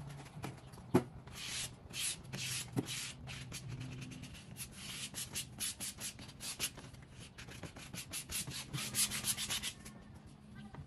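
A microfiber cloth rubbed in quick strokes over a vinyl wrap on a truck hood: a rapid run of scratchy swishes that stops near the end.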